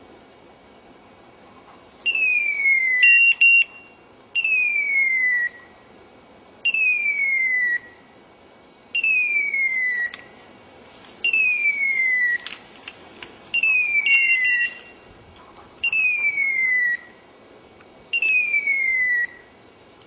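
Hunting dog's beeper collar sounding its point-mode signal: a falling electronic tone about a second long, repeated roughly every two seconds, which tells the hunter the dog has stopped on point.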